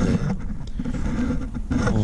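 Rustling and scraping of a winter sleeping bag's fabric as it is handled up close, with the rumble of hands moving the camera.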